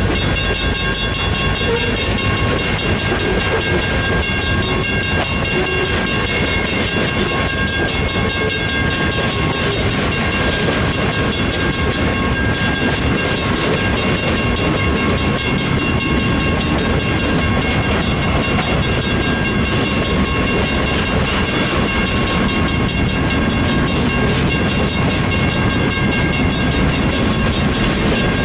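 Freight train passing a grade crossing: diesel locomotives going by, then freight cars rolling and clacking over the rails in a steady rumble. On top, the crossing's warning bell rings continuously in a fast, even clang.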